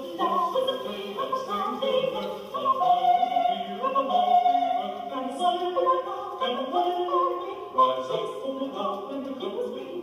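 Music with a choir singing in an operatic style, many voices together, sounding muffled with little treble.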